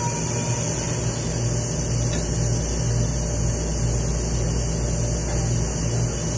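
A steady low mechanical hum that pulses faintly, with a constant hiss over it.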